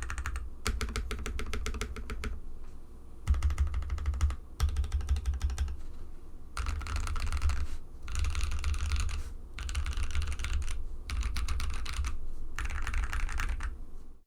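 Fast typing on a mechanical keyboard with Gazzew Boba U4T tactile switches, lubed with Tribosys 3204 and filmed, on an FR4 plate: a deep, rich clatter of keystrokes in bursts of a second or two, separated by brief pauses, cutting off suddenly near the end.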